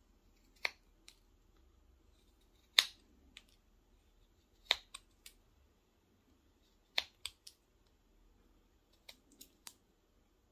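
Carving knife cutting into a small wooden doll blank: about a dozen short, crisp snaps at irregular spacing as the blade slices off chips, the strongest about three seconds in.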